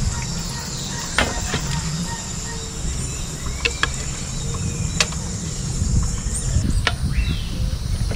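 Steady high-pitched insect drone that stops near the end, with a few sharp clinks of metal tongs and a ladle against a metal pot and tray as boiled pork hock is lifted out.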